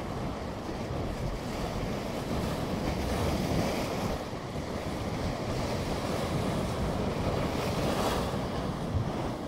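Sea waves surging and washing over a low rock ledge, a steady surf hiss that swells and falls, with a wave breaking and splashing against a rock near the end.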